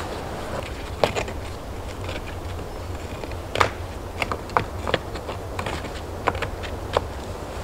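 Stones knocking against each other as they are handled and set in a dry stone wall: a series of sharp, irregular clacks, the loudest about a second in and midway through, over a low steady rumble.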